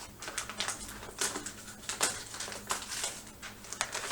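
Paper rustling and crackling in quick irregular bursts as a sealed bid envelope is opened and its pages handled.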